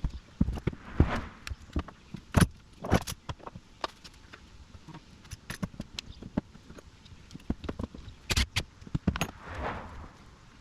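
Irregular metallic clinks and knocks of hand tools and parts being handled during work on a personal watercraft engine, with a few louder sharp clanks.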